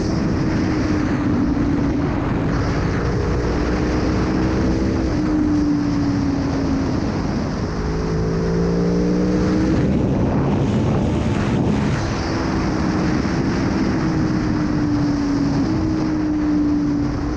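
Aprilia Tuono V4 1100's V4 engine running under way, its note slowly falling and climbing with the throttle and stepping suddenly in pitch a few times.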